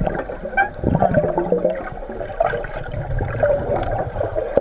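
Sound picked up underwater in a swimming pool: gurgling and bubbling water with muffled, wavering voice-like tones from the swimmers.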